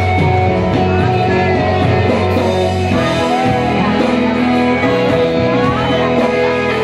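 Music with guitar and other instruments playing steadily, with a woman's singing voice coming in at times over it.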